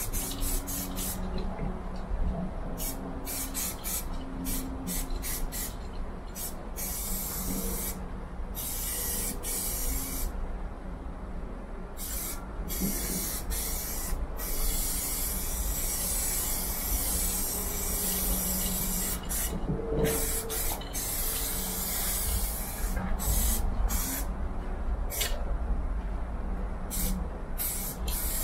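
Aerosol spray-paint can hissing in many short bursts and a few longer sprays of several seconds, stopping and starting again and again, over a steady low rumble.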